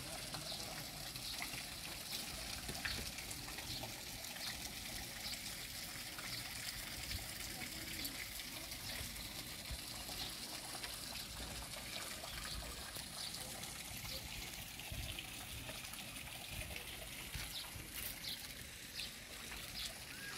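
Water trickling steadily in a shallow stream that feeds a rock-lined pond.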